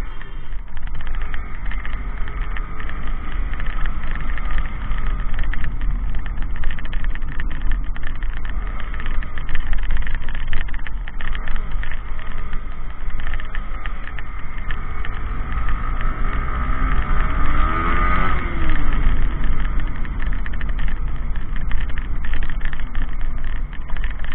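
Yamaha R15 V3 motorcycle on the move: its 155 cc single-cylinder engine running, under a heavy low rumble of wind and road. About three-quarters of the way through, a tone rises and falls briefly.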